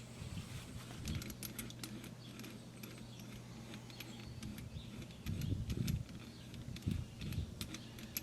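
Light metal clicks and clinks of hand tools being handled as a bearing-extractor collet is taken off a slide hammer and a smaller one fitted, with a few soft low thumps about halfway through, over a steady low hum.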